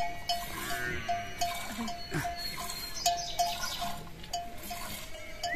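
A livestock bell clinking in a steady rhythm, about two strokes a second, with an animal bleating faintly about two seconds in.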